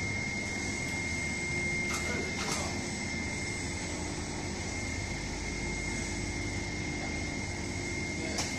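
Three-layer air bubble film making machine running: a steady mechanical hum with a constant high-pitched whine over it. A few faint clicks about two seconds in and near the end.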